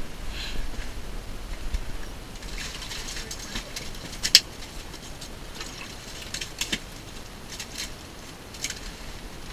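Scattered clicks and rustling as fishing gear is handled beside the ice hole, with one sharp click about four seconds in.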